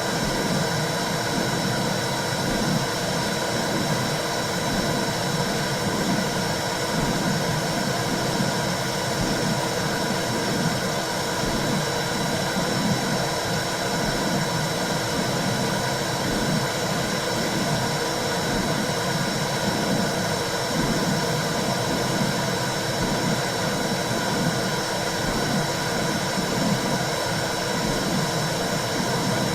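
Womb-sound white noise for soothing a baby: a continuous low, muffled whooshing rumble with an uneven pulsing texture, steady in level.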